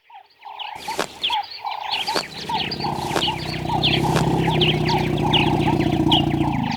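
Chorus of animal calls: a run of repeated short croaking notes with quick high chirps over them. A low steady drone joins about two seconds in and cuts off abruptly at the end.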